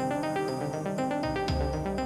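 Background music: an instrumental passage of a hip-hop track with repeating synth notes and a deep bass note coming in about one and a half seconds in.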